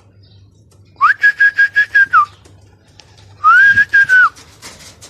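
A person whistling: a quick run of about seven short, level whistled notes, then after a second's pause one longer note that glides up, holds with a few breaks and drops away at the end.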